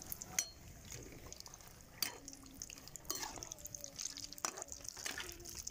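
Samosas deep-frying in hot oil in a steel pot: a steady faint sizzle with scattered small pops and clicks. They are browning and nearly done.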